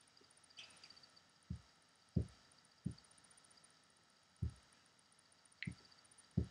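Six soft, dull thumps at uneven intervals, with a faint high chirp near the start and another near the end.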